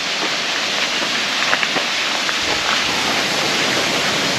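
Steady rush of flowing stream water, an even hiss, with a few faint clicks.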